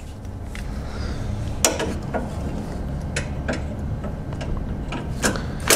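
Scattered light metallic clicks and taps of a socket and extension being fitted to a bolt with a cordless impact, over a low rumble; at the very end the impact starts running.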